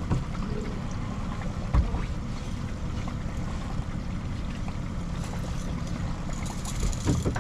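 Fishing boat under way at trolling speed: a steady low rumble of motor, water and wind, with a few short knocks.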